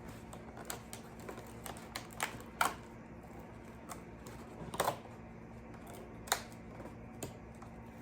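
Scattered light clicks and taps from handling the hot sauce advent calendar while its day-13 door is opened and the small sauce bottle is taken out. The taps come irregularly, and the loudest are about two and a half seconds in and just under five seconds in.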